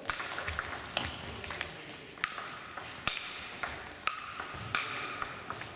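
Table tennis rally: the ball clicking sharply off the bats and the table in quick succession.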